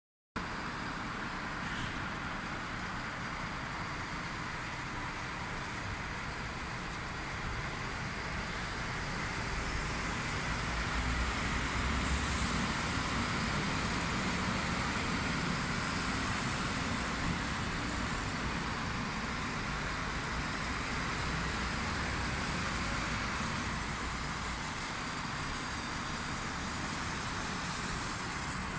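Diesel engines of a convoy of garbage trucks pulling out onto a road, blended with steady city traffic noise. The low rumble swells a little from about ten seconds in.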